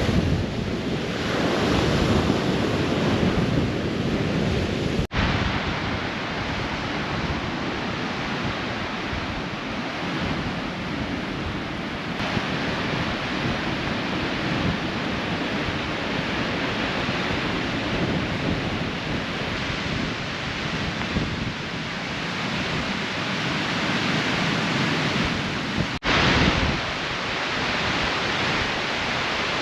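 Strong storm wind blowing and gusting, buffeting the microphone, with surf breaking on the shore. The rush breaks off for an instant twice, about five seconds in and near the end.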